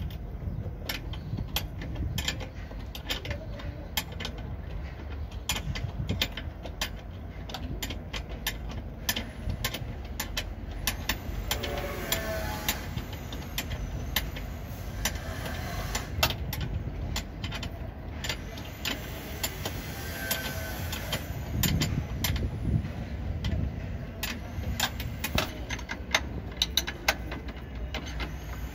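Irregular metallic clicks and knocks of hand tools at work on a car's front suspension while arm bushes are refitted, over a steady low background rumble.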